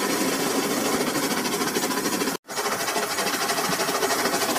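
Toy trains running on plastic track: a steady whirring motor with a fast, fine rattle of gears and wheels. The sound cuts out for a moment about halfway through, then carries on the same.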